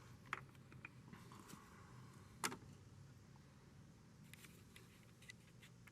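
Near silence with a faint steady hum and a few small clicks, the sharpest about two and a half seconds in.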